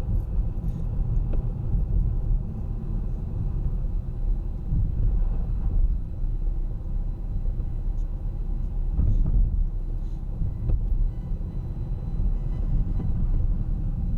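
Car driving through city streets: a steady low rumble of engine and tyres on the road.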